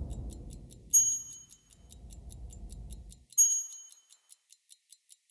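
Fast, even ticking of a timepiece, about five ticks a second, with two bright, high ringing dings, about a second in and about three and a half seconds in.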